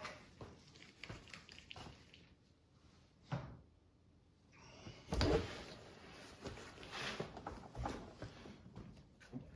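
Handling noise from working on a hard-shell suitcase: scattered light knocks, clicks and rustles, with one sharper knock about three seconds in and a busier stretch of rustling and knocking about halfway through.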